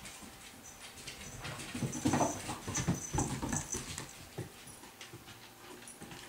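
A kelpie and a puppy at play: short whining dog sounds and scuffles, with a cluster of louder sounds about two to three and a half seconds in.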